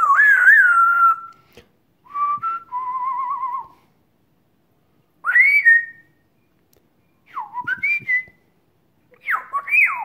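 African grey parrot whistling five short phrases with pauses between them: swooping and rising notes, one with a quick wavering trill about three seconds in.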